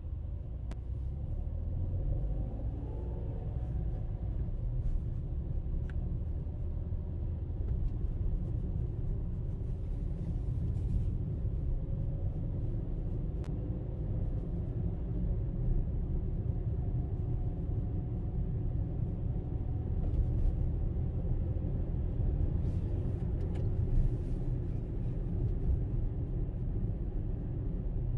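Steady low rumble of a vehicle driving on town roads, engine and road noise together. A faint engine note rises and falls a few times as it speeds up and slows.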